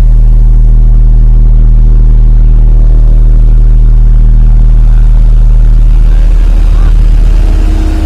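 Hamm 311 vibratory roller with its Cummins four-cylinder diesel running steadily under load, a loud deep hum with a steady low drone. Near the end the tone shifts and the sound briefly dips.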